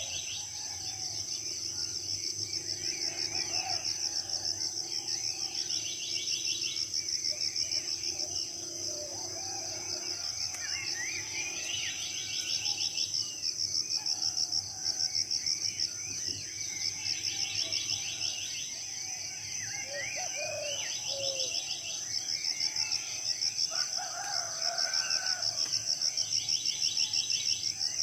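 Tropical forest morning chorus: many birds chirping and whistling over a steady, fast-pulsing high insect drone of crickets or cicadas. Short rapid trills break in every few seconds.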